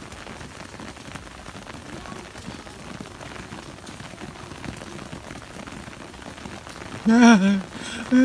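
Steady hiss and patter of rain and wet snow falling on garden leaves and ground during a winter storm. A woman's voice sounds briefly near the end.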